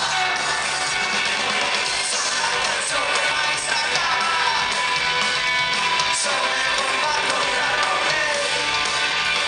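Live band playing a rock song with singing and guitars, heard from the crowd through a camera microphone.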